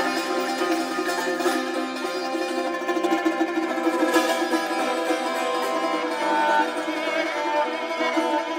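Persian tar played in a fast plucked tremolo, with a kamancheh (spike fiddle) bowing long held notes alongside it in the second half.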